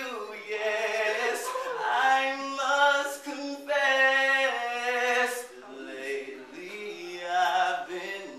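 A voice singing unaccompanied, holding long notes with a wavering pitch.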